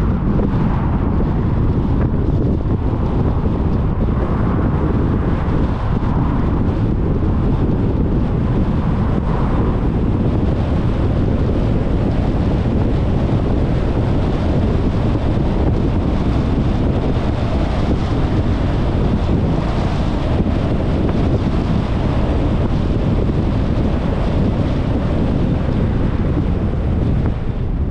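Steady, loud wind rumble on the microphone of a GoPro filming from a moving car, with vehicle road noise underneath.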